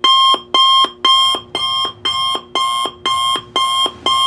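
Digital timer alarm going off as the countdown reaches zero: a rapid run of loud electronic beeps, about two a second, starting abruptly.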